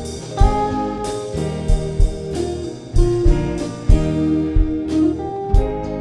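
Live worship band playing an instrumental passage with no vocals: electric and acoustic guitars and keyboard holding chords over a drum kit beat.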